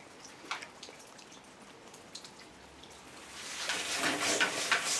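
Exercise bike being pedalled: faint clicks at first, then, about three seconds in, a quickly repeating clicking rattle with a low hum that grows steadily louder as the pedalling picks up speed.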